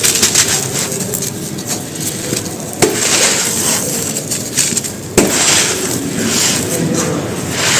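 Soft, crispy white stone cylinders being crushed and crumbled on a dry floor: dense crunching and crackling, with two sharp snaps about three and five seconds in.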